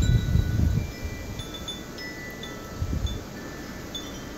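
Wind chimes ringing in a gusty storm wind: scattered high, clear notes at several pitches, each ringing on briefly. Wind rumbles on the microphone, strongest in the first second and again briefly about three seconds in.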